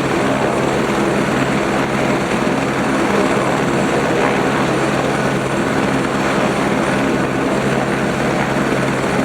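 Eurocopter AS350 B3 helicopter running steadily, its single turboshaft engine and rotor making an even, unbroken drone.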